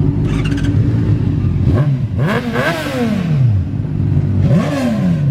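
Motorcycle engine idling, revved up and back down twice: a longer rev about two seconds in and a shorter one near the end.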